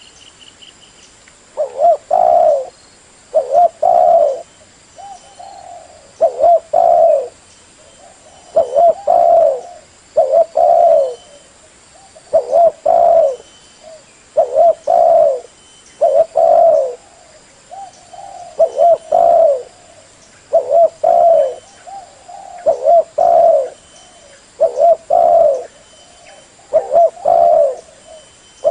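Spotted dove cooing over and over: loud groups of two or three coos repeat about every two seconds. It is a lure call recording for drawing doves in to be trapped or shot.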